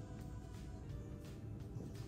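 Background music with held tones over a steady beat.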